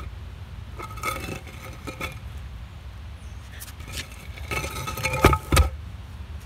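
A concrete paving slab being pried up and tilted on edge: gritty scrapes and clinks of stone against stone and gravel. Two heavy thumps come about five seconds in.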